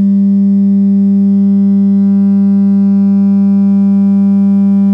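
3D-printed scale-model subwoofer enclosure playing a steady test tone of about 200 Hz (the test's 33 Hz scaled) for a sound-pressure measurement, with overtones above it; the analyser reads about 121 dB.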